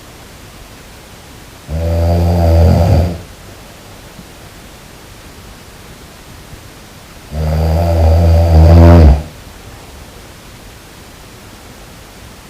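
A sleeping person snoring: two loud, low snores of about one and a half to two seconds each, roughly five and a half seconds apart, with a steady background hiss between them.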